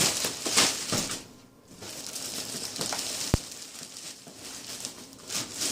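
Handling noises: packaging rustling and crinkling, with light knocks and one sharp click a little past the middle.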